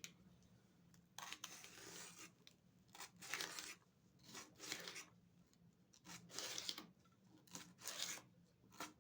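Repeated rasping, scraping strokes of hand food preparation in a kitchen, about one a second, each lasting around half a second.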